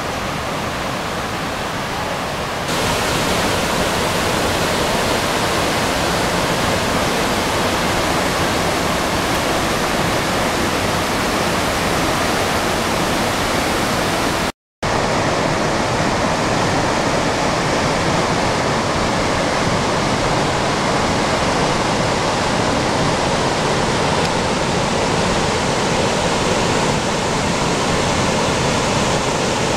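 Waterfall and rushing creek water, a steady loud roar that gets louder a few seconds in. It cuts out for an instant about halfway through.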